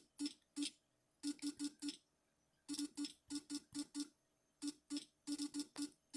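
Smartphone on-screen keyboard clicks while a message is typed: about twenty short taps in quick runs, with brief pauses between the runs.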